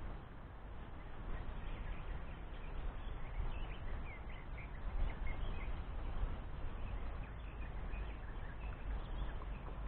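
Wind buffeting the microphone with a steady low rumble, with faint bird chirps between about three and six seconds in.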